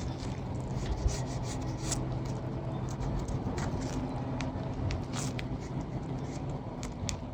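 Small scrapes, rubs and light taps of hand work on old wood as filler is pressed into worm holes, over a steady low hum.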